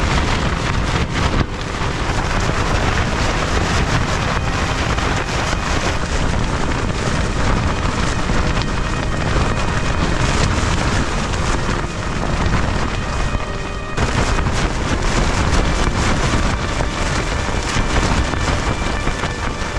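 Gale-force wind, around 50 mph, buffeting a backpacking tent whose pegs keep pulling out of the soft ground, the fabric flapping hard, with heavy wind noise on the microphone.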